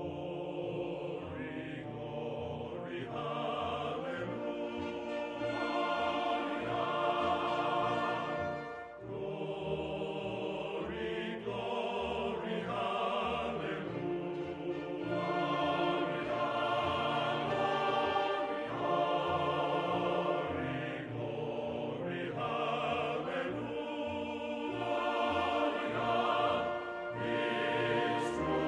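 Background music: an orchestral piece with choir singing long held notes.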